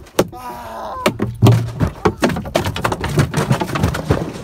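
Rapid, irregular knocks and thuds on a small fishing boat's hull and deck, with a short shout about half a second in.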